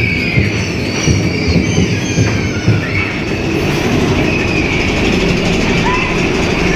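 Mine-train roller coaster cars running along the steel track with a steady rumble and clatter, with short high wheel squeals that come and go, most near the start and the end.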